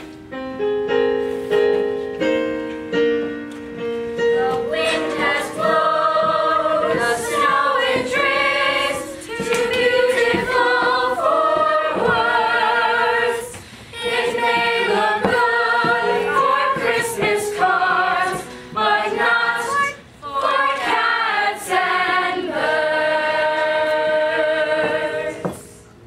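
Music for a stage dance: held instrumental notes at first, then a choir of voices singing, which stops shortly before the end.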